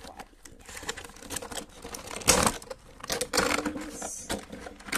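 Clear plastic blister packaging crinkling and clicking as it is handled and a figurine is pulled from its tray, with louder crackles about two seconds in and again a second later.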